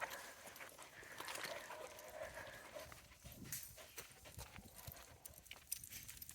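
Faint, irregular footsteps crunching on a hiking trail, with small scattered clicks.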